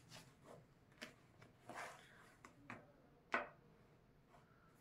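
Near silence broken by a few faint clicks and taps of small objects being handled, the loudest a little past three seconds in.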